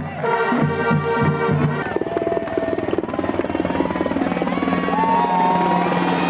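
Music for about the first two seconds, then a helicopter flying overhead, its rotor beating in a fast, steady chop.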